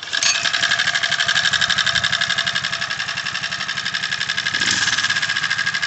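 A motorized bicycle's 79cc engine catches right away and runs at a steady idle, with a fast, even putter. It picks up slightly for a moment about four and a half seconds in.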